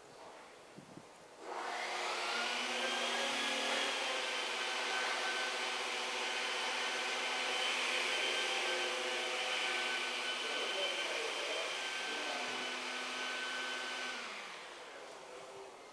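An electric motor appliance switches on about a second and a half in, runs with a steady whine, then winds down and fades out near the end.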